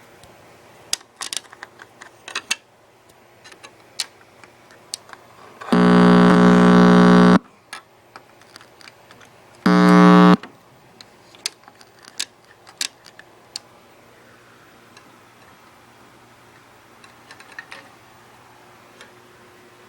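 Two loud, steady buzzes of one even pitch, the first about six seconds in and lasting under two seconds, the second a shorter one about ten seconds in. Light clicks and ticks are scattered around them.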